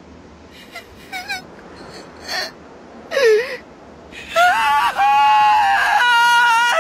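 A boy's voice crying in an anime dub: small sniffling catches of breath, then a sob and a short cry, and from about four seconds in loud, drawn-out, high-pitched wailing.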